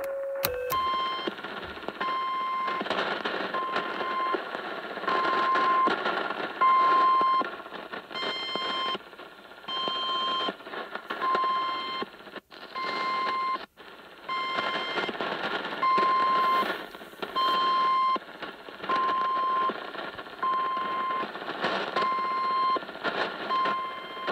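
Shortwave radio receiver tuned near 4185 kHz, playing an unidentified signal: a buzzy tone beeping on and off about once every second or so, some beeps short and some long, over steady static. The static drops out briefly twice in the middle.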